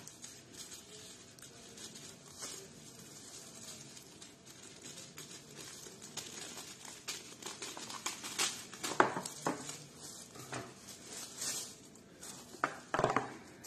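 Thin plastic film crinkling as it is handled and cut with scissors, a run of small irregular crackles with a few louder rustles about two-thirds of the way through and near the end.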